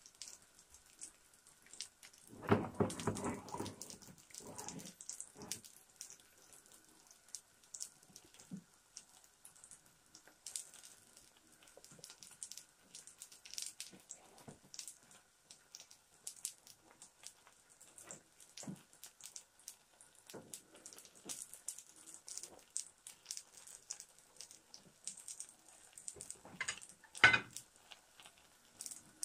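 Gram-flour roti batter frying in oil in a pan, crackling with small scattered pops. There is a louder clatter about two and a half seconds in and a single sharp knock near the end.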